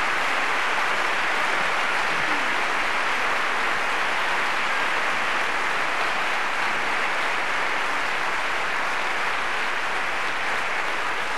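Theatre audience applauding a dancer's bow: steady, dense clapping with no break.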